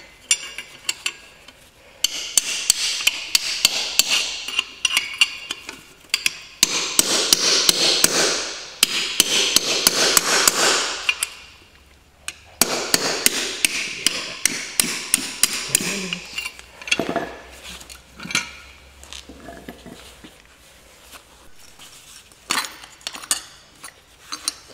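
Hammer striking a steel chisel or pry bar against a car's front wheel hub and bearing, metal on metal, to work a stuck part loose. It comes in three fast runs of blows with short breaks, then only scattered single knocks from about two-thirds of the way in.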